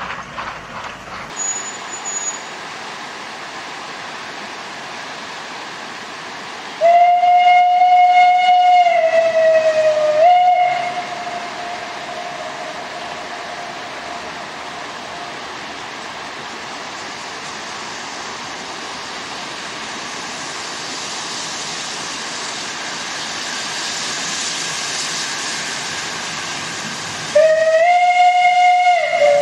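Narrow-gauge steam locomotive's whistle blowing. One long steady blast of about three seconds dips in pitch at its end and is followed by a short second note; another long blast starts near the end. Between the blasts there is a steady hiss that slowly grows louder.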